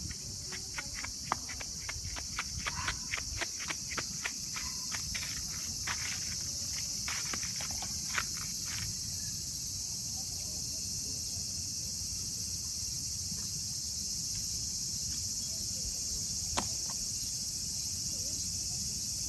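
Steady high-pitched chorus of summer insects. A run of light clicks for the first nine seconds or so, then a single click near the end.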